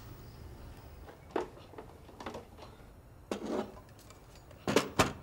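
A series of scattered clicks and knocks from small hard objects being handled, over a low steady hum. The two sharpest and loudest knocks come close together near the end.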